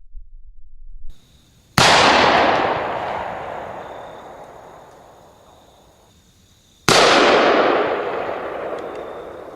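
Two rifle shots from an AK-105, about five seconds apart. Each is a sharp crack followed by a long rolling echo that dies away over about four seconds.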